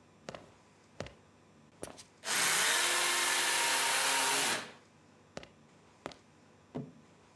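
A small electric motor spins up, runs steadily for about two seconds and winds down, with a few sharp clicks before and after it.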